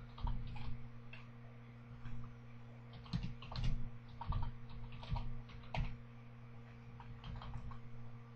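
Computer keyboard being typed on: irregular key clicks, several in quick runs, over a steady low electrical hum.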